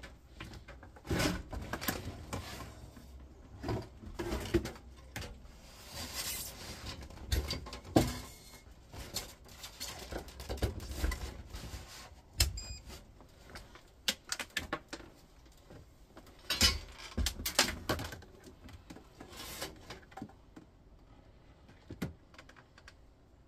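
Irregular knocks, clicks and rustling from hands handling a power cable, plug and plastic casing among clutter, with the sharpest knock about eight seconds in; it thins out near the end.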